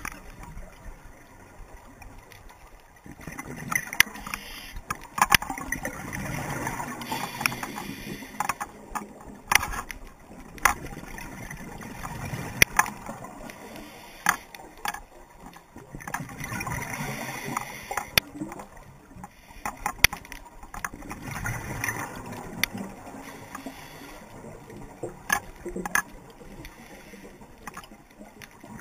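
Scuba diver breathing through a regulator underwater: a swell of rushing, gurgling exhaled bubbles every four or five seconds, with sharp clicks scattered throughout.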